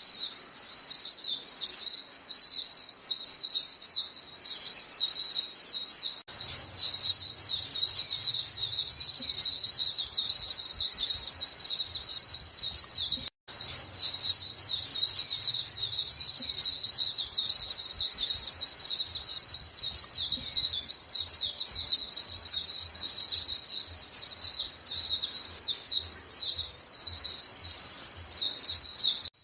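A flock of white-eyes calling to one another: a dense, unbroken chatter of high, thin chirps that overlap each other, with a momentary gap about thirteen seconds in.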